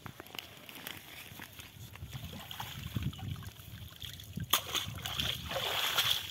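Cast net being hauled out of shallow pond water, water sloshing and dripping off the mesh, with a single sharp click about four and a half seconds in and the loudest splashing near the end.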